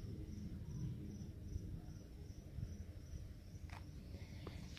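An insect chirping: a thin, high, steady trill that pulses about twice a second, over a low rumble.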